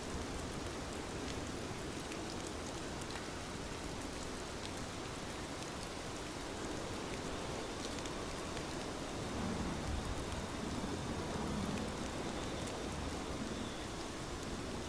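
Steady rain falling, an even hiss with scattered individual drop ticks, and a slight low swell about two-thirds of the way through.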